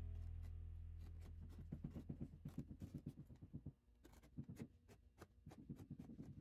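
A pen scratching on coarse burlap in quick short strokes as it traces an outline. The strokes pause about four seconds in for a few light ticks, then resume. Guitar music fades out at the start.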